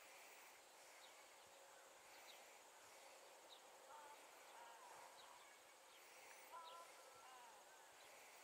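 Faint outdoor ambience, close to silence: a steady high insect hum, with a few faint short chirps and warbling notes around the middle.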